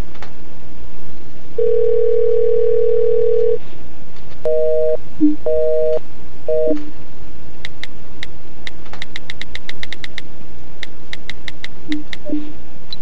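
Smartphone call that does not go through: a steady telephone tone for about two seconds, then a busy signal of two-tone beeps, half a second on and half a second off, three times. After that come quick runs of taps on the phone's on-screen keyboard, the clicks coming several a second.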